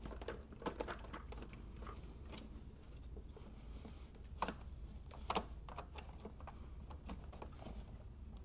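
Scattered light clicks and knocks of plastic engine-bay parts being handled and snapped into place as the air intake snorkel is refitted. The sharpest knocks come about four and a half and five and a half seconds in.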